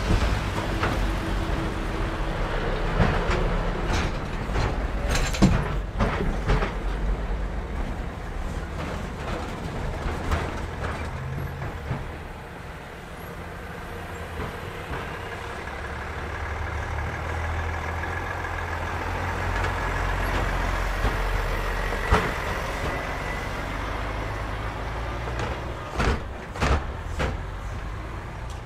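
Heavy lorries driving over a railway level crossing one after another: diesel engines running as they pass close by, with sharp knocks as the wheels bump over the rails, a few about five seconds in and a cluster near the end.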